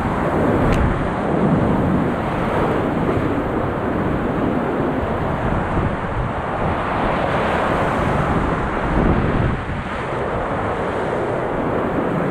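Rushing whitewater of a river in spate pouring through rapids around a kayak, a loud, continuous noise, with wind and water buffeting the microphone.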